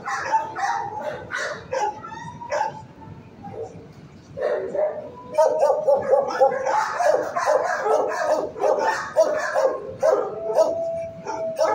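Many dogs barking and yelping together in a shelter kennel block, thinning out a couple of seconds in and building back into a dense chorus, with one long drawn-out whine near the end.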